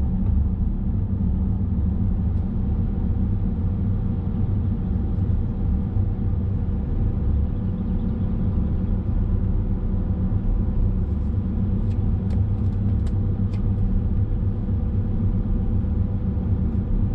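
Diesel BMW E70 X5 being driven: a steady low rumble of engine and road noise, with a few faint ticks or rattles about twelve seconds in.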